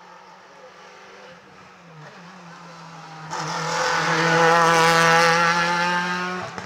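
Rally car engine held at high revs under load as the car climbs past. Its note grows much louder about halfway through, stays loudest for a few seconds, and falls off sharply near the end as the car moves away.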